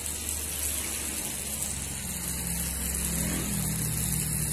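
A motor engine running steadily with a low hum. A second, slightly higher droning tone comes in about two seconds in.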